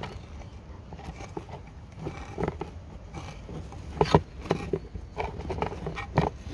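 A metal rod scraping and poking caked, gooey diesel soot (EGR soot mixed with oil vapour) out of an aluminium intake manifold's runners, in irregular crunching scrapes. A few louder knocks come about four seconds in and again near six seconds as the manifold is moved about in a plastic tub.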